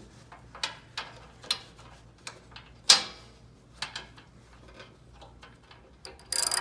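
Metal tool clicks and taps while a spark plug is threaded back into a small snowthrower engine and tightened with a socket wrench. The clicks are scattered and irregular, with a sharper knock about three seconds in and a brief louder rattle near the end.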